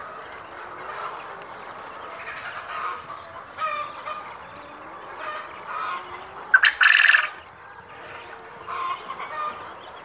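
A pen of quail and other poultry calling: an ongoing mix of short chirps and clucks, with one loud, harsh call lasting under a second about two-thirds of the way through.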